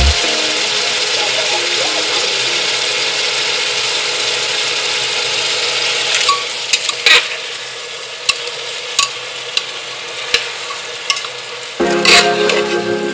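Chickpeas sizzling in an aluminium pressure cooker as a metal spatula stirs them. The hiss is steady at first, then drops after about six seconds, leaving sharp clicks and scrapes of the spatula against the pot. Background music comes in near the end.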